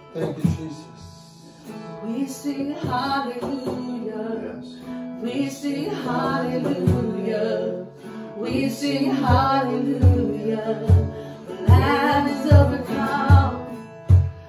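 Contemporary worship music: a voice singing phrases every few seconds over sustained chords and guitar, with a steady drum beat.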